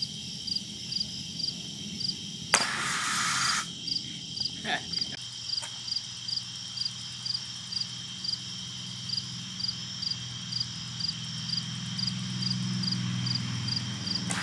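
Crickets chirping steadily at night, short high chirps about twice a second over a constant high trill. About two and a half seconds in, a sharp click is followed by a one-second rush of hiss, and a low hum builds near the end.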